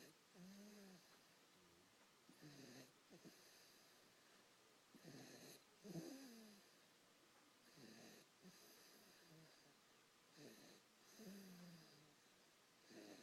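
Baby snoring softly, one pitched, squeaky snore with each breath about every two to three seconds.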